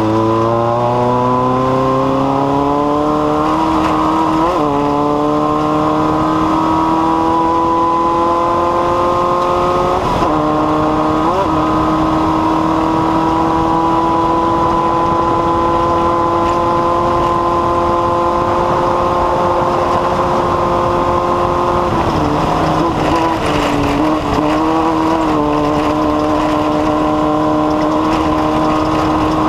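A small valveless pulsejet (Snore type) running continuously with a loud, steady, buzzing drone. Its pitch climbs over the first few seconds as it heats up, then holds, faltering briefly a few times.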